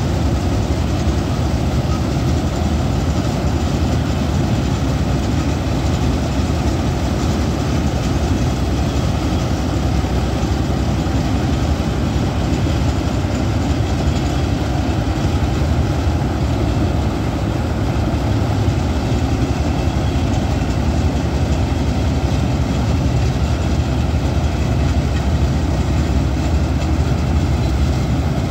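John Deere 4WD tractor's diesel engine driving a mounted Standard TSC-513 combine harvester while it cuts and threshes paddy: a loud, steady run of engine and threshing machinery with no change in speed.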